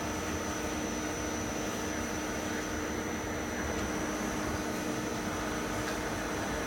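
Steady hum and hiss of a running CNC machine, with a constant low tone and a faint high whine.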